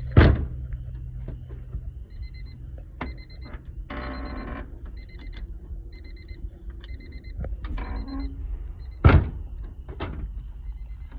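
Car door being tested after a handle repair: it shuts with a loud thud at the start and again about nine seconds in, with smaller clicks and rattles between. A high electronic chime beeps on and off in short pulses throughout.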